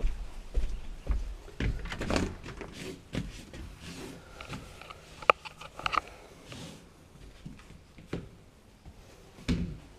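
Footsteps and small handling knocks, about two steps a second at first, then fainter scattered knocks, with a sharp click about five seconds in and a louder thump near the end.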